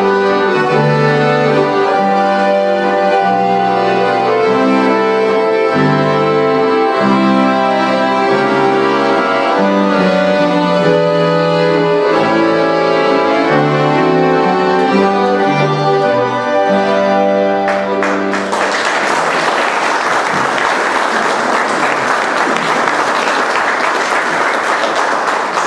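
An ensemble of many accordions plays a tune in unison, with chord and melody changes. About two-thirds of the way through, the music ends and audience applause follows until the end.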